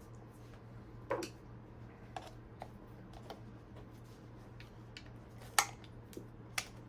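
Scattered small clicks and taps of a hex driver, screws and plastic parts as the stock steering servo is unbolted from an RC truck chassis, the sharpest click about five and a half seconds in, over a steady low hum.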